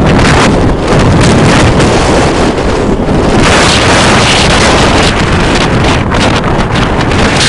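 Strong gusty wind blowing across the microphone: loud, uneven buffeting rush that surges about halfway through.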